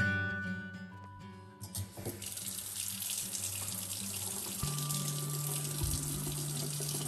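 Kitchen faucet running a steady stream of water into a stainless steel sink, starting about two seconds in, over quiet background music.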